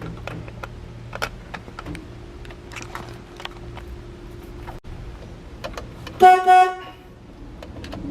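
1974 Ford F-100's horn honking twice in quick short beeps about six seconds in, sounded through the newly fitted horn bar to test it. Before it come a few light clicks of parts being handled.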